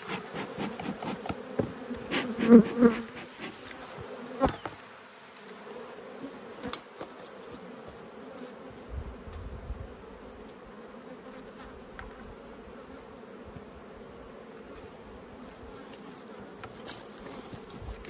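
Honey bees buzzing steadily in a humming swarm around an opened Langstroth hive, disturbed by the box being opened. A few sharp knocks and a brief louder drone, as of a bee passing close, come in the first few seconds.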